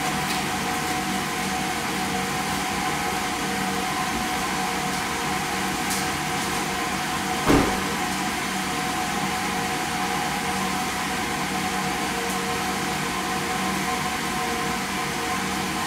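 Steady mechanical hum with several constant tones, broken once by a single loud thump about seven and a half seconds in.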